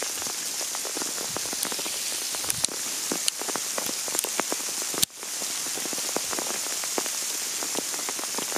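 Hail shower: a steady hiss with many irregular small ticks of hailstones striking. A sharper click comes about five seconds in.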